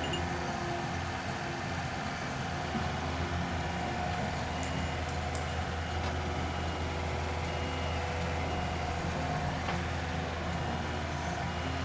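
Skid steer engine running steadily with an even, low hum while it works with a bulldozer attachment.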